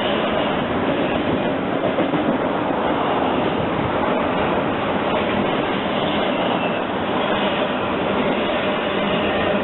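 Freight train of intermodal cars rolling past, with a steady, loud noise of steel wheels on rail.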